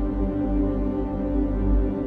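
Ambient music: a film-score track slowed down 800% into sustained, overlapping tones with a deep low rumble underneath.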